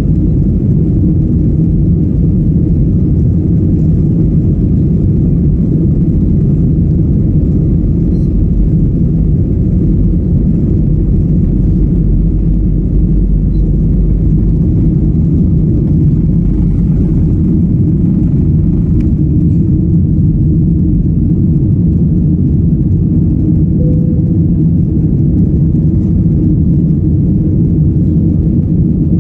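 Steady, loud rumble of a passenger plane's engines and airframe during take-off. The level stays constant, with no rise or fall.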